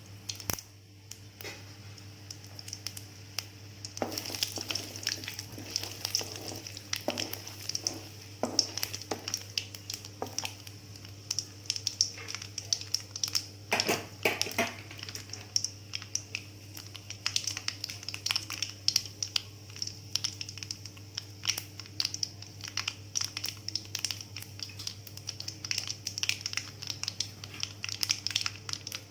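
Mustard seeds popping in hot oil with chana dal and urad dal frying for a tempering: a steady sizzle broken by many sharp, irregular pops.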